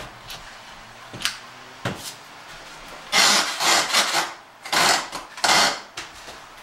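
A couple of light knocks, then five rough rasping strokes in quick, uneven succession as drywall and wood framing are worked by hand.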